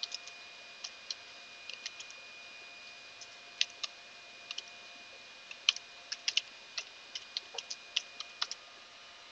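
Typing on a computer keyboard: a string of separate key clicks at an uneven pace, ending shortly before the end, over a faint steady high whine.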